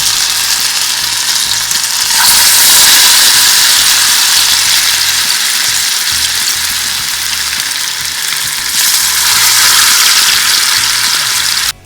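Masala-marinated barramundi (koduva) pieces sizzling loudly as they go into hot oil in a frying pan. The sizzle surges louder about two seconds in and again near nine seconds, then cuts off suddenly just before the end.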